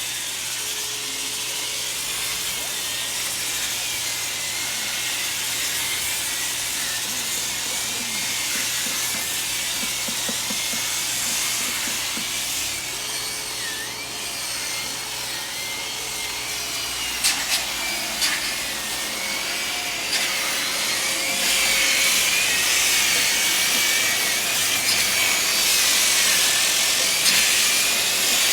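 Power sander running against old wooden clapboard siding, a steady abrasive rasp with a motor whine that wavers in pitch as the tool is pressed and moved. A few sharp knocks come about 17 seconds in, and the sanding grows louder over the last third.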